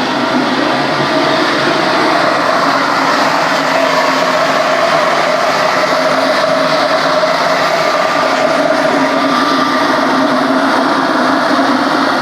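Sand drying kiln running: a loud, steady mechanical noise with faint humming tones, unchanging throughout.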